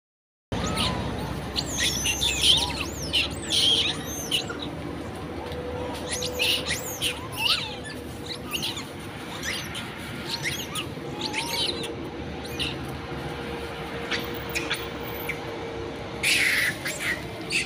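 Many short, high chirping calls, some rising and falling, over a faint steady hum. About sixteen seconds in comes a louder, harsher burst of calling.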